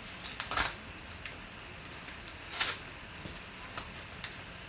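Handling of a trading-card pack: a couple of short rustles and a few light clicks against a quiet room background.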